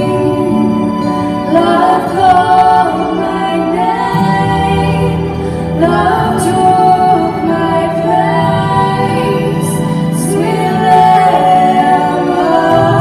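A woman singing a song solo into a microphone over instrumental backing music, in phrases of a few seconds with held notes.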